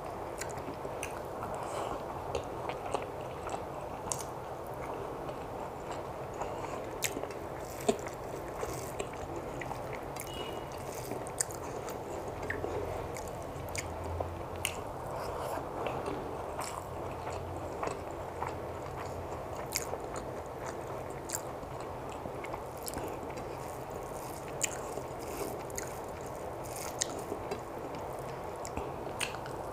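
A person chewing mouthfuls of rice and amaranth greens fried with poppy seeds, close to the microphone, with frequent small clicks of mouth noise. Her fingers mix the rice and greens on the plate.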